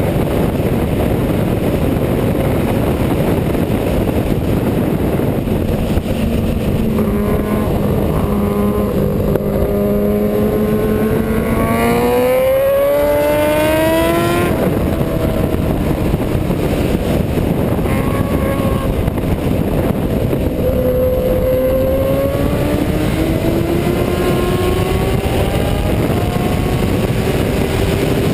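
Sport motorcycle engine at racing speed on track, its pitch climbing for several seconds under hard acceleration. It drops off sharply about halfway, then climbs again twice. A steady rush of wind noise over the on-bike microphone runs beneath it.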